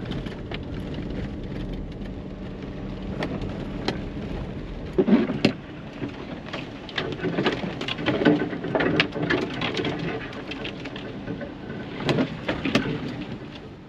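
Rain falling, with many sharp individual drop hits and several swells of heavier patter.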